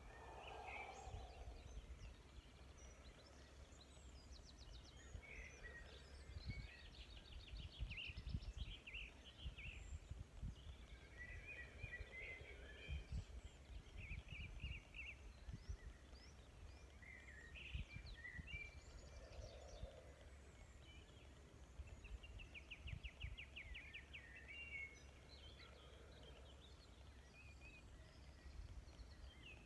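Faint birdsong: scattered chirps and several rapid trills from songbirds, over a low rumble.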